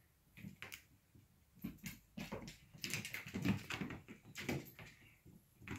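A cat's paws and claws scrabbling and bumping on a hardwood floor as it dashes and pounces, an irregular run of quick clicks and thuds, busiest in the middle.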